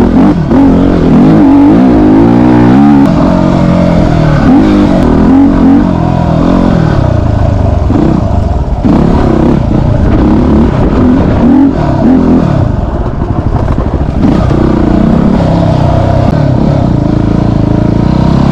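Yamaha WR250R's single-cylinder four-stroke engine, heard from on board as the bike is ridden off-road. The revs rise and fall again and again as the rider works the throttle.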